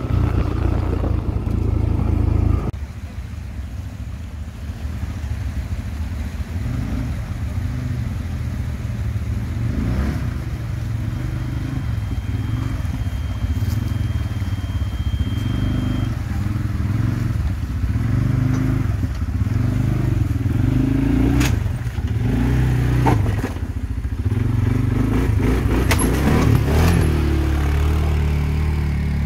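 CFMoto CForce ATV engine running at low, shifting revs while riding off-road. The engine note drops about three seconds in, and a few sharp knocks and clatter come near the end.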